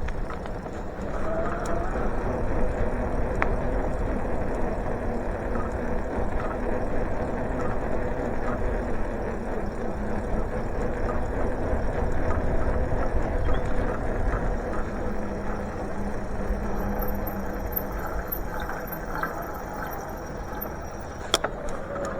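Riding noise from a moving bicycle: a steady rumble of wind on the microphone and tyres on the road, with a wavering hum and small ticks, and one sharp click near the end.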